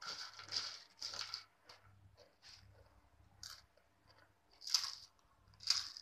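Crisp Bingo Yumitos red chilli potato chips being bitten and chewed: a string of short, sharp crunches about once a second, the loudest two near the end.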